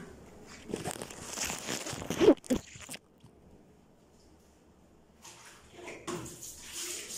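Clattering and handling knocks, with one sharp knock about two seconds in; after a short quiet stretch, a tap starts running water into a bucket at a bathroom sink.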